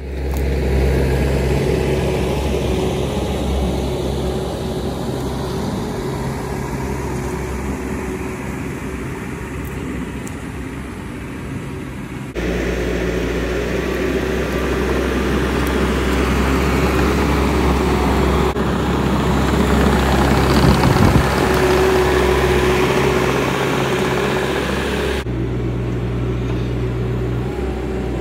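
Bobcat T650 compact track loader's diesel engine running steadily, with a steady tone over the low engine sound. The sound changes abruptly a few times.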